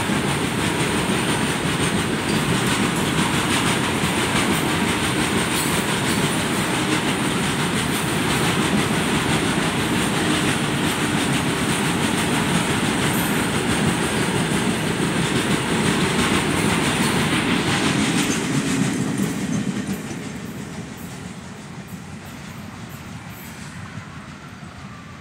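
Long, loaded goods train of covered open freight wagons passing close at speed, with the steady loud noise of its wheels running on the rails. The noise falls away sharply about nineteen seconds in as the last vehicle goes by and the train recedes.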